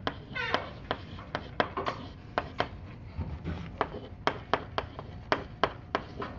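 Chalk writing on a blackboard: an irregular run of sharp taps with short scratches between them, a few a second.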